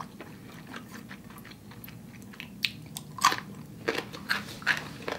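A person chewing a mouthful of instant noodles close to the microphone: wet mouth clicks and smacks, coming more often and louder in the second half.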